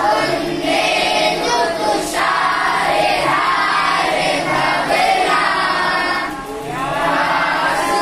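A group of children singing together in unison, in phrases with a brief break about two seconds in and a short dip about six and a half seconds in.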